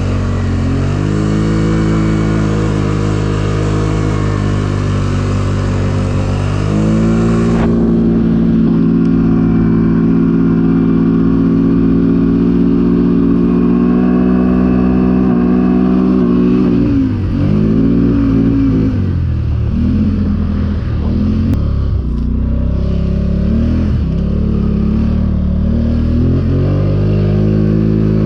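Polaris ATV engine running under load through snow: it holds a steady pitch, picks up revs and gets louder about a quarter of the way in, then its revs dip and climb again several times past the halfway mark before evening out.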